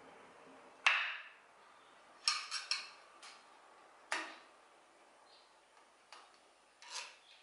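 Screwdriver clicking and tapping against the metal head of a longarm quilting machine while its screws are being removed: a handful of sharp metallic clicks, with a quick run of three about two seconds in.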